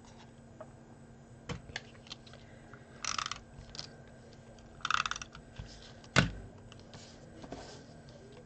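Paper and card pieces handled on a tabletop while a label is stuck on: small scattered clicks and taps, two short rustles about 3 and 5 seconds in, and one sharp knock just after 6 seconds, the loudest sound. A faint steady hum runs underneath.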